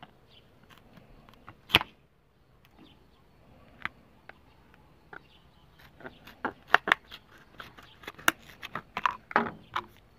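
Tin snips cutting a piece of thick plastic sheet, each cut a sharp snap: one about two seconds in, then a quick run of snaps from about six seconds in until near the end.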